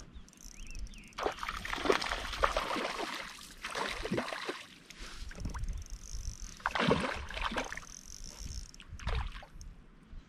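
Water splashing and sloshing beside a canoe in four uneven bursts, the loudest about two seconds in and another around seven seconds in.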